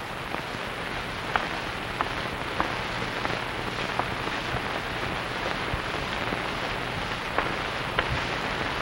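Studio audience applause: a steady spatter of many hands clapping, with a few sharper claps standing out.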